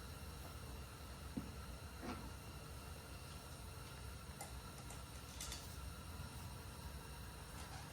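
Faint, scattered clicks and light taps of small parts and tools being handled, a few seconds apart, over a low steady hum.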